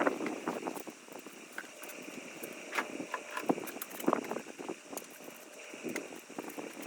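Irregular clicks and light knocks of hand tools and parts being handled during work on an ATV, with a few sharper knocks about three and four seconds in.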